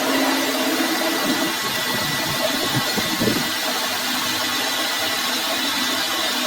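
A workshop machine running steadily: a continuous mechanical hum and hiss with a few faint knocks about three seconds in.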